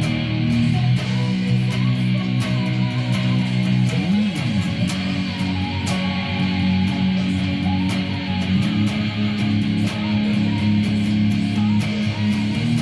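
A rock power trio of electric guitar, bass guitar and drums playing an instrumental passage, with regular cymbal strikes over sustained chords. About four seconds in, a low note slides down and back up.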